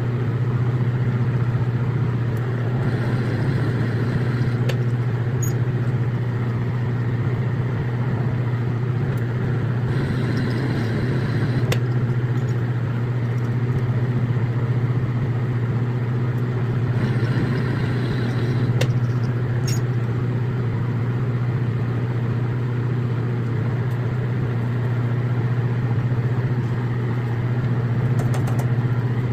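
Lathe motor running steadily while threading a rifle barrel, sped up to double speed, with a strong low hum. Three times, about seven seconds apart, a brighter hiss rises over the hum for a second or two, as a threading pass cuts the steel.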